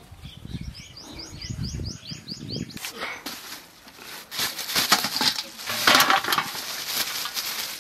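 Thin plastic bag of vegetables crinkling and rustling as it is handled, loudest about five to six seconds in. Before that, a bird calls a quick series of short rising chirps, about five a second.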